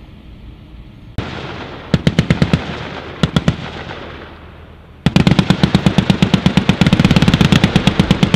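M2 .50-calibre heavy machine guns firing from vehicle mounts: two short bursts about two and three seconds in, then from about five seconds in a long, unbroken string of rapid shots.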